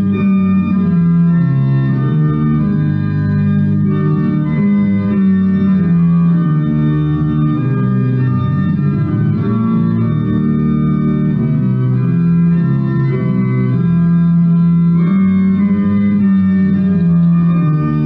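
Organ playing a hymn tune in slow, sustained chords.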